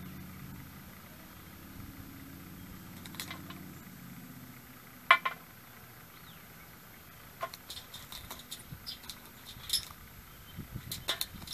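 Crow pecking into a metal food bowl: sharp metallic clicks and taps of its beak against the bowl and the food, the loudest a ringing click about five seconds in, with quicker clusters of taps near the end. A low engine hum fades out over the first few seconds.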